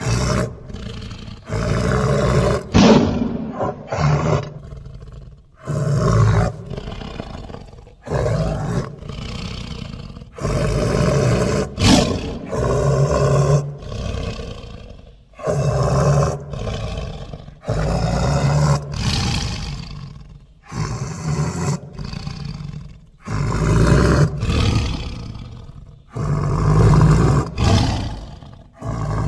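Sound-designed Smilodon (sabre-toothed cat) calls: more than a dozen loud big-cat roars and growls in a row. Each lasts one to two seconds, with short pauses between them.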